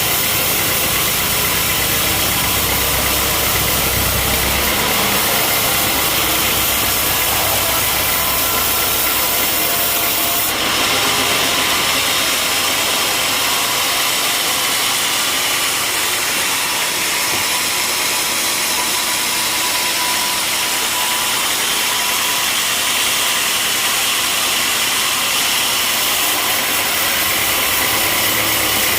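Sawmill running: a loud, steady mechanical drone with a strong high hiss. About ten seconds in the hiss grows stronger and the low rumble drops away.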